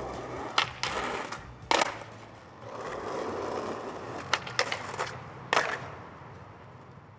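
Skateboard wheels rolling on asphalt, broken by several sharp clacks of the board popping and landing during flatground tricks. The rolling fades out near the end.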